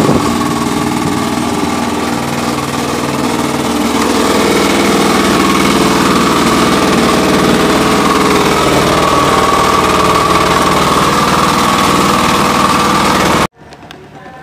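Fishing boat's inboard engine running steadily, loud and close, with a fast even chugging beat. It grows a little louder about four seconds in and cuts off abruptly near the end.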